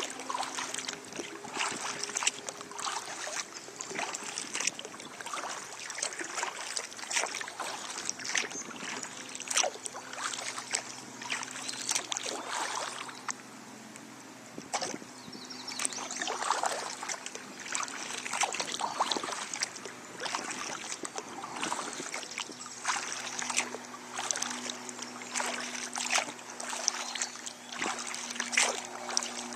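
Kayak paddle strokes dipping into the water, splashing and dripping off the blades every second or two, with a short pause about halfway through.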